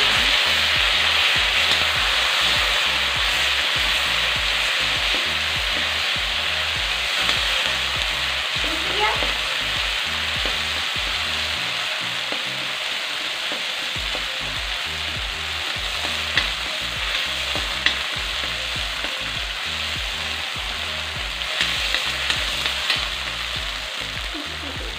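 Ground green chilli and coriander sizzling in hot oil in a kadai, stirred with a metal spatula. The steady sizzle slowly dies down, with a few sharp clicks of the spatula against the pan in the second half.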